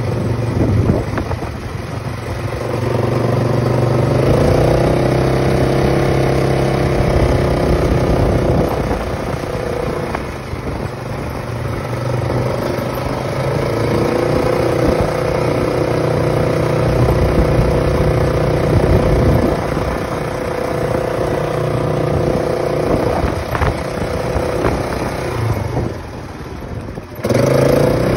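Polaris Sportsman ATV engine running while the machine is ridden, picking up revs twice as it accelerates and settling to a steady cruise between. Near the end it drops off briefly, then revs up again.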